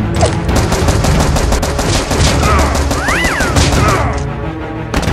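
Rapid automatic gunfire, a fast run of shots lasting about four seconds and stopping before the end. It is a dubbed firearm sound effect, not the quiet pop of a foam-dart blaster.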